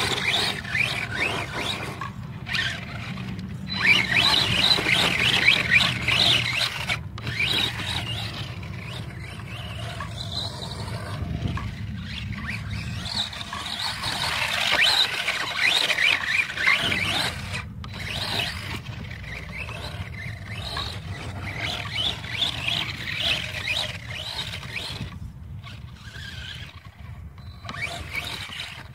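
Stock brushless electric motor of a DHK Crosse RC monster truck on 2S whining in repeated bursts as it is throttled up and over a rough dirt hill.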